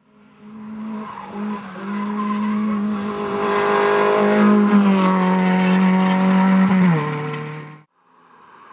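Rally car engine at high revs, growing louder as it approaches and then holding a steady note. About seven seconds in the pitch drops sharply and the sound fades away.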